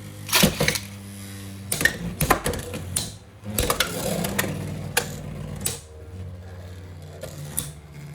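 Beyblade X spinning tops whirring steadily in a plastic stadium, clashing with sharp clacks about seven times at uneven intervals. One is a Samurai Excalibur on the Turbo bit.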